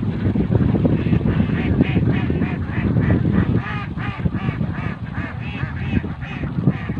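A flock of domestic ducks quacking, with many short calls overlapping. A low rumble of wind on the microphone runs underneath and eases about halfway through.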